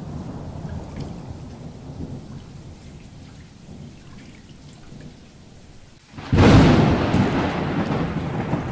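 Thunderstorm: rain with low rolling thunder, then a sudden loud thunderclap about six seconds in that rumbles on.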